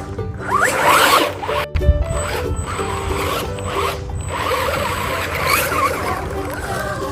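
Background music with several quick rising zip-like swishes over it, and a sharp click just under two seconds in.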